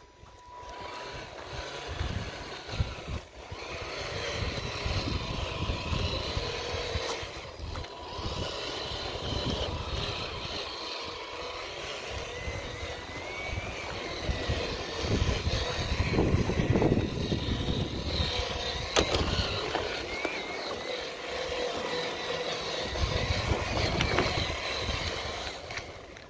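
Traxxas TRX-4 Defender RC crawler's electric motor and gearbox whining as it drives over beach sand, the pitch rising and falling with the throttle. Wind buffets the microphone in low rumbles.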